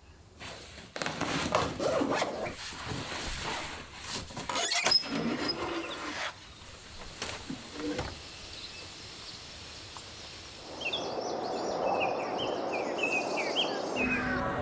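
A run of knocks and scraping noises, the loudest part, with sharp clicks about five and seven seconds in. A steady rushing noise follows near the end, with birds chirping over it.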